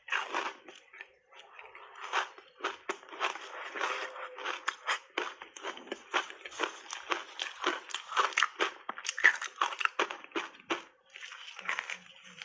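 Reshaped ice coated in matcha powder being bitten and chewed close to the microphone: a fast, irregular run of sharp, crisp crunches.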